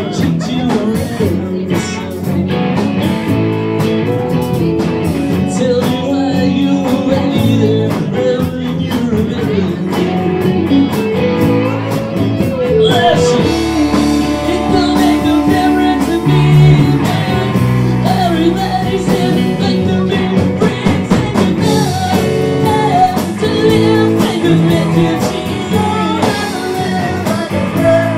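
Rock band playing a song live, with electric guitar, bass and drums under a lead vocal.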